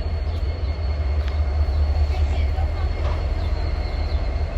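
Diesel freight locomotives idling: a steady low rumble with a faint, steady high-pitched whine above it.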